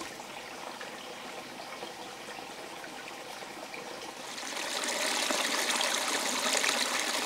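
Shallow stream trickling and splashing over stones, growing louder about four seconds in.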